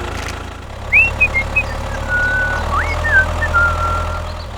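A steady engine idle with a low, even drone. From about a second in, a high whistle glides up and down over it, then holds a tone.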